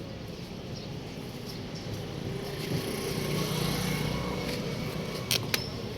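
A small engine running with a low hum that grows louder through the middle and then eases off, with two sharp clicks near the end.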